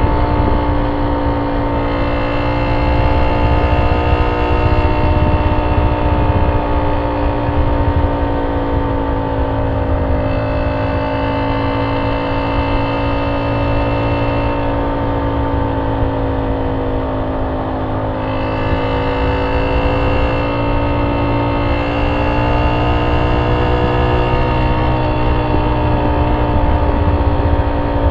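Honda C70's single-cylinder four-stroke engine running through a banana-style aftermarket exhaust as the motorcycle cruises, its note easing down a little about halfway through and rising again after. Wind rumble on the microphone runs underneath.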